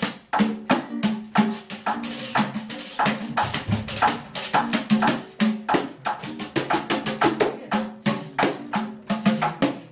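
Live samba played by a trio: a hand-struck frame drum keeps up a quick run of sharp strokes over strummed ukulele chords and plucked upright bass.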